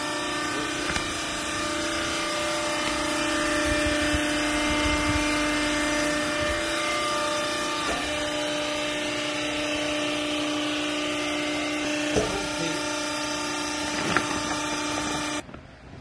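Hydraulic textile baler's pump motor running with a steady whine, with a few light knocks along the way; the sound cuts off suddenly near the end.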